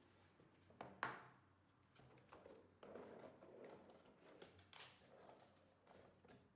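Faint handling sounds: a plastic security camera set down on a wooden table with a sharp knock about a second in, then the rustle and scraping of a cardboard box being picked up and moved.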